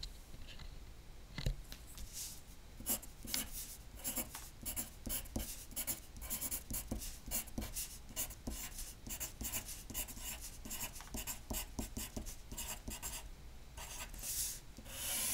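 Graphite pencil writing letters on a sheet of paper: a run of short scratchy strokes one after another, with a longer continuous stroke near the end.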